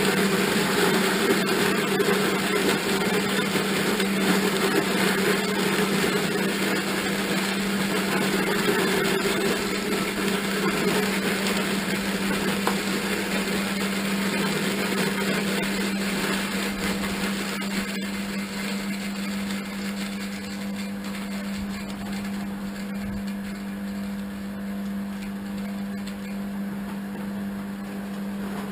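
A small electric motor running steadily, with a constant hum under a noisy rattle that eases a little about twenty seconds in.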